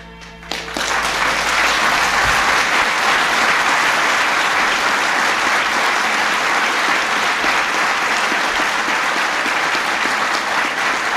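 Audience applauding, beginning about a second in and holding steady.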